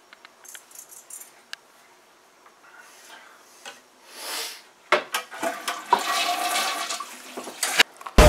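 A toilet flushes. About five seconds in, a sudden loud rush of water starts and gurgles for about three seconds. A few faint clicks and a short hiss come before it.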